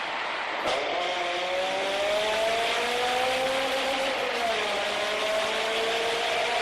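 Honda K20 four-cylinder engine pulling under acceleration, its pitch climbing slowly, dipping briefly about four seconds in, then climbing again.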